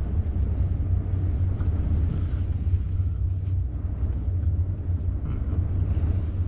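Steady low rumble heard inside a car cabin, with a few faint rustles and ticks of cloth being wrapped.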